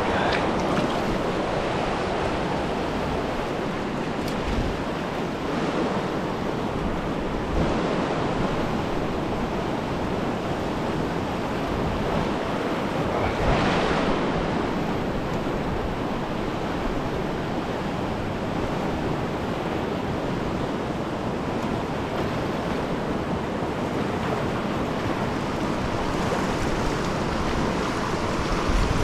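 Fast river current rushing through whitewater rapids: a steady, unbroken wash of water noise, swelling briefly louder about halfway through.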